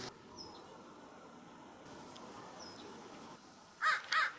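American crow cawing twice in quick succession near the end, harsh and loud over quiet outdoor background, with a couple of faint high chirps from a small bird earlier.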